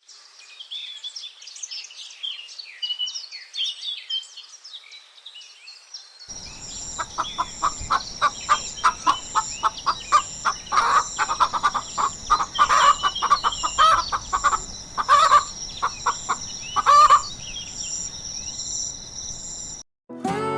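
Birds calling: scattered high chirping at first, then from about six seconds a run of quick repeated fowl-like calls over a steady high-pitched whine, stopping suddenly near the end.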